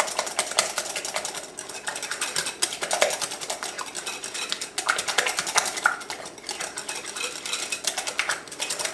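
Wire whisk beating thick pastry cream in a glass bowl, its wires clicking rapidly and unevenly against the glass as butter is worked into the cream.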